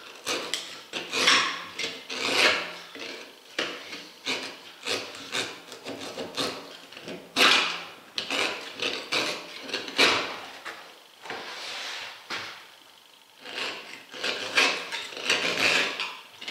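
Knife being drawn through the thick rubber of an Omsk OI-25 truck tyre, in repeated irregular scraping strokes as the tread layer is cut away, with a quieter stretch about three quarters of the way through.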